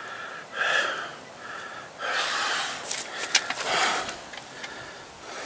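A man breathing heavily and loudly through his nose and mouth, about three long, noisy breaths, out of breath from hard work in the heat. There are a couple of sharp clicks near the middle.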